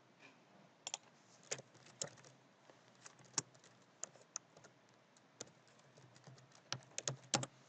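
Computer keyboard being typed on: faint, irregular key clicks, with a quick run of several keystrokes near the end.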